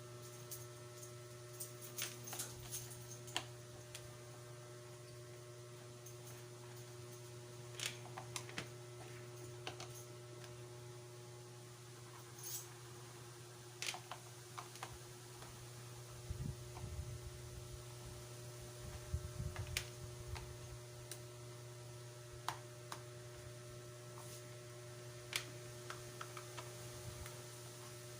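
Scattered small clicks and taps of a screwdriver taking the screws out of an electric hand drill's housing, with some low handling rumble past the middle, over a steady electrical hum.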